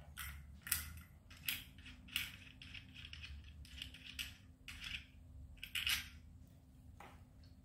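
Wooden parts of a Louet S10 spinning wheel being handled and fitted together: light clicks and knocks, about a dozen, at irregular intervals.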